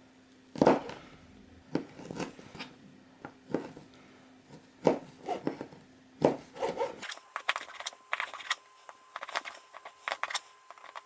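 Irregular knocks and taps of objects being handled. About seven seconds in, the background hum drops away and a run of quicker, lighter clicks follows.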